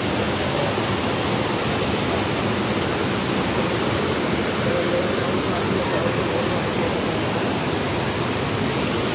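Water rushing over the rocky cascades and rapids of a river: a steady, unbroken rush of white water.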